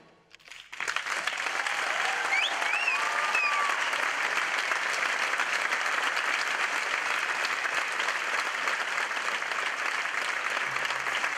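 A theatre audience applauding steadily after a song ends, starting about a second in after a brief hush. A few whistles sound over the clapping about two to three seconds in.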